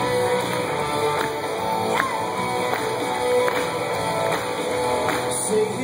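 Live worship band playing an instrumental passage: electric guitar strumming over sustained chords, with a steady beat.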